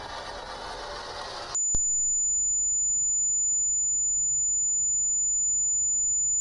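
Harsh distorted noise cuts off abruptly about a second and a half in and gives way to one steady, very high-pitched electronic tone that holds unchanged, with a single click just after it starts.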